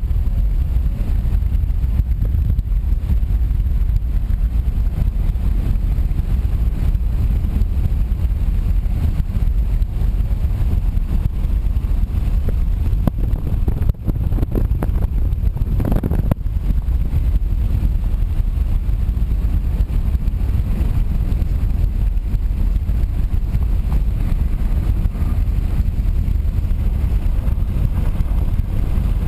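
Steady low rumble of a car driving at road speed: engine and tyre noise, with a brief louder rush about halfway through.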